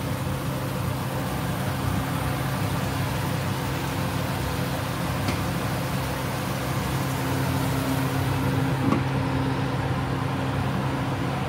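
Steady whirring hum and hiss of a kitchen fan running while food cooks in a frying pan on the stove. About nine seconds in, a light knock as a glass lid is set on the pan.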